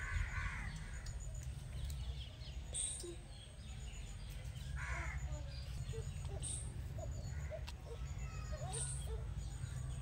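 Crows cawing, once at the start and again about halfway through, over a steady low background rumble.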